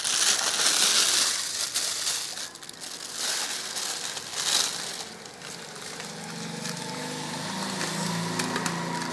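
Thin plastic bag crinkling and rustling as rice noodles are shaken out of it into a bowl, loudest in the first two seconds, with a few more rustles about three and four and a half seconds in. From about six seconds a low steady hum takes over.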